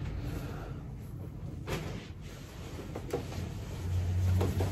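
Quiet handling of a cotton fat quarter: a few soft knocks and fabric rustles as the cloth is held up and moved. A low steady hum comes in near the end.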